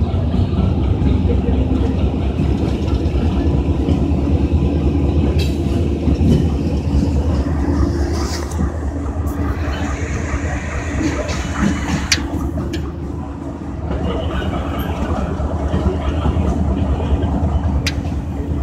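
AGE 30 diesel-electric locomotive running with a steady low engine hum while it moves along the tracks, with a few sharp clicks along the way.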